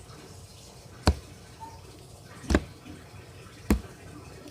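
Slime being squeezed and pressed by hand, giving three sharp wet clicks spaced about a second apart.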